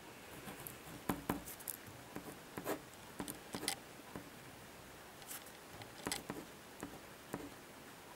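Pen writing on paper: faint, scattered short scratches and taps as strokes are drawn, with small gaps between them.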